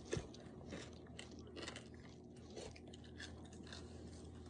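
A person chewing a boiled and dehydrated blacktail scorpion: faint, irregular crunches several times a second.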